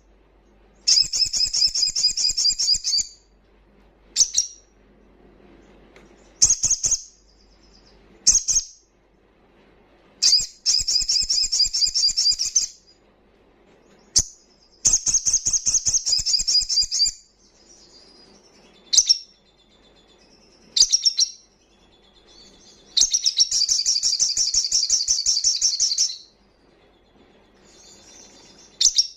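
Male olive-backed sunbird singing loudly: several bouts of fast, high trilled song, each lasting two to four seconds, with short sharp call notes between them.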